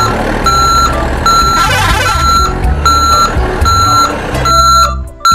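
Electronic reversing-alarm beeps: a single-pitched beep repeating evenly about every three-quarters of a second, over a low rumble.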